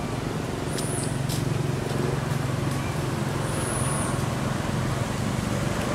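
A steady low rumble, with a short high chirp a little under a second in and another near four seconds in.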